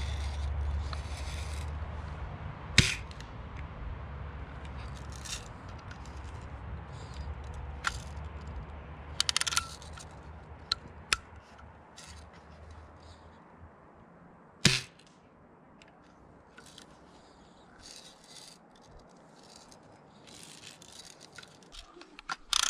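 Daisy Buck 105 lever-action BB rifle being cocked and handled: a series of sharp metallic clicks and snaps from its lever and action. The loudest come about three seconds in and about two-thirds of the way through, with a low rumble under the first half.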